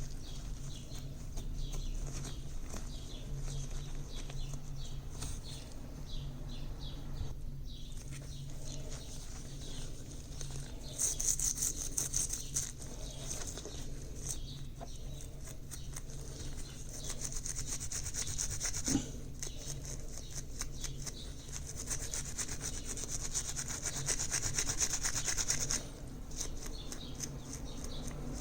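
Hand tool scraping and rubbing on a small diecast metal part in uneven strokes, with harsher, hissier scraping stretches about 11 seconds in and again from about 22 to 26 seconds.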